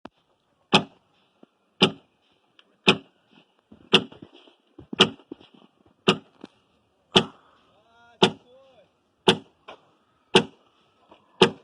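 Axe chopping wood: eleven heavy, evenly paced strikes about a second apart.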